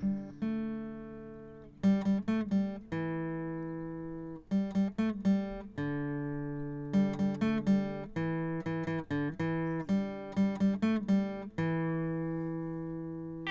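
Background music: a solo acoustic guitar played fingerstyle, with clusters of quick plucked notes between long ringing chords that fade slowly.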